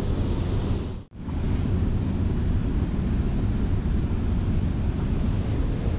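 Steady rush of a waterfall and churning white water close by, with wind buffeting the microphone. It cuts out for a moment about a second in, then carries on.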